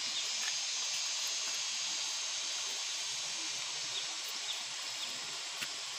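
Steady outdoor background hiss with a few faint, short chirps scattered through it.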